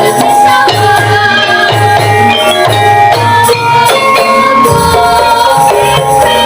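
Javanese gamelan ensemble playing, with ringing metallophone and gong-chime tones over a lively kendang hand-drum pattern in jaipong style.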